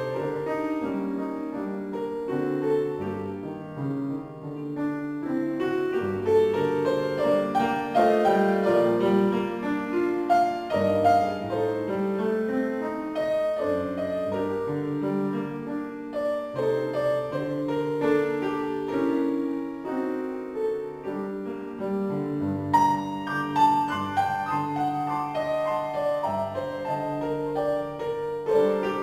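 Instrumental piano music: a melody moving over a lower bass line.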